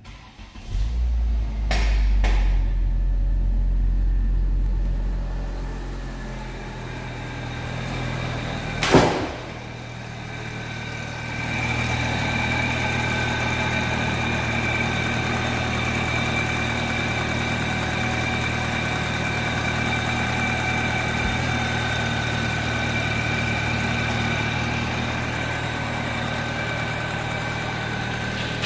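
1999 Ford Escort's 2.0-litre Split Port Induction four-cylinder engine starting about a second in and then idling steadily. A single loud thump comes about nine seconds in.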